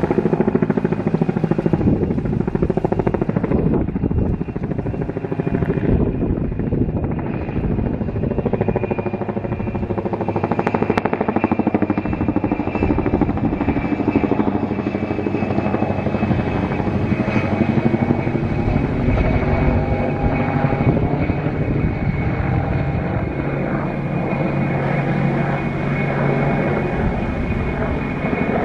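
Mil Mi-2 helicopter flying overhead: a rapid, steady chop from its main rotor over a constant high whine from its twin turboshaft engines.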